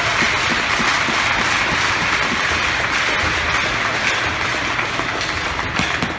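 Arena crowd and players applauding and cheering, a steady wash of clapping and voices echoing in the ice rink that eases off slightly near the end.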